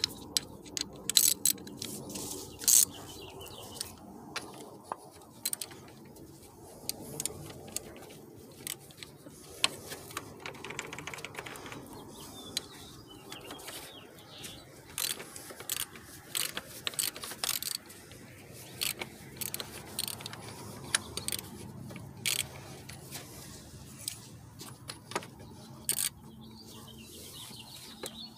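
Ratchet wrench clicking in short, irregular runs as a 32 mm socket is worked on the plastic cartridge oil filter housing cap of a Chevy Ecotec 2.2 L engine.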